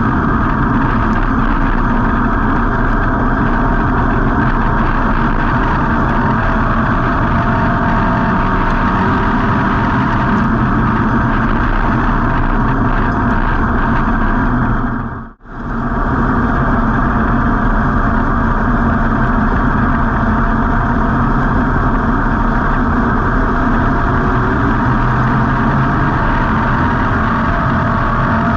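Dirt-track street stock race car's V8 engine running, heard from an on-board camera inside the car. The sound drops out for a moment about halfway through and comes straight back.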